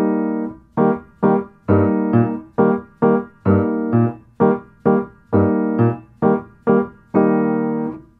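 Piano playing the duet part of a short duple-meter piece: detached notes and chords struck about twice a second, some with a low bass note added, ending on a longer chord that dies away.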